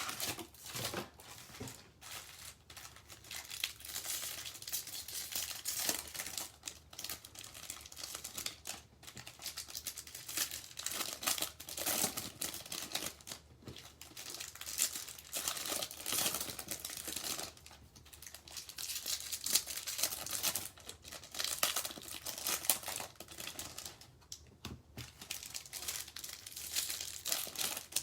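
Plastic wrapping on a trading-card blaster box crinkling and tearing as it is unwrapped and opened by hand, in irregular rustles and rips.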